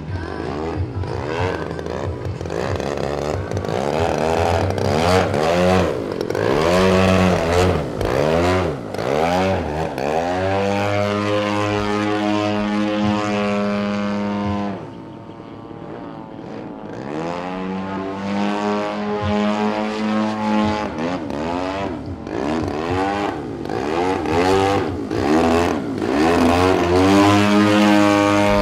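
Propeller engine of a giant-scale radio-control aerobatic airplane running in flight, its pitch and tone rising and falling through the manoeuvres. About halfway through it throttles back briefly, then comes up again.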